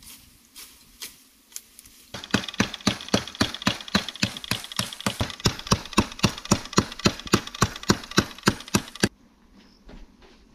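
Bamboo being chopped: a fast, even run of sharp knocks, about five a second, starting about two seconds in and stopping abruptly about nine seconds in.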